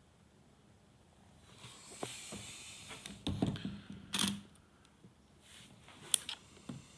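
A Nikon Z6 mirrorless camera being handled and operated: rustling, then a cluster of clicks, a louder click about four seconds in, and a sharp click about six seconds in.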